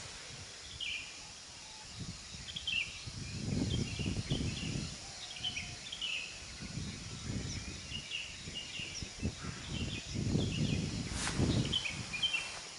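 Birds calling with many quick, short falling chirps, over a low rumble that swells and fades a few times.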